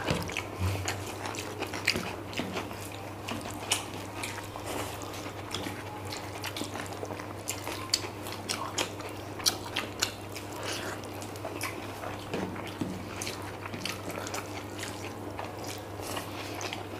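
Two people eating fried rice and chilli chicken with their hands: chewing and lip smacks, with fingers working the rice on their plates, heard as a steady stream of small wet clicks.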